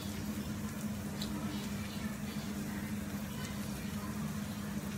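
Steady low hum with a faint even hiss beneath it and a few soft clicks.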